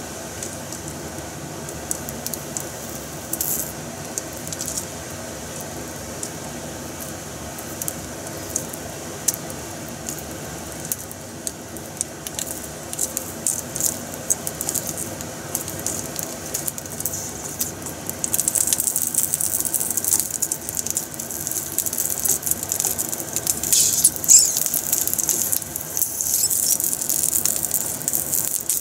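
Octopus-cut red wiener sausages frying in oil in a non-stick pan: sizzling with fine crackles and spits, which grow denser and louder about two-thirds of the way in as the cut legs open and curl. A steady low hum runs underneath.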